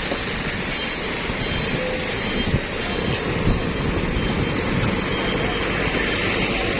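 Tour buses' diesel engines running steadily, a continuous low rumble.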